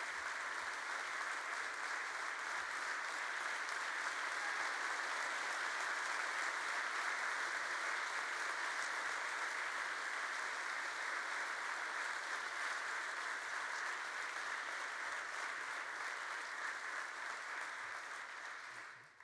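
Large audience applauding steadily, dying down near the end.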